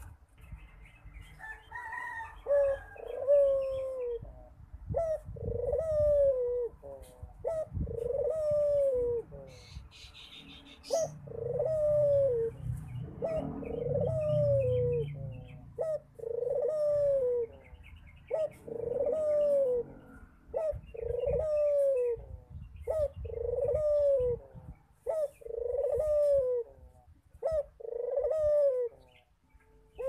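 Barbary dove (domestic ringneck dove) cooing over and over, a long series of coos about one every second or two, each rising briefly then falling.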